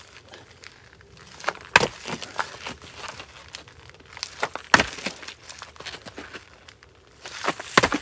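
Rustling and crinkling of dry leaves and gear being handled on the ground, with a few sharp knocks, the loudest about two seconds in, near the middle and near the end.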